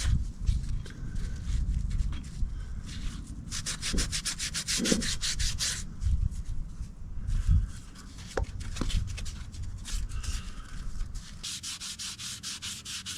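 A brush scrubbing grime off the parts of an 8-inch Cushman four-jaw chuck, in quick back-and-forth strokes that come in bursts with short pauses and a few light knocks.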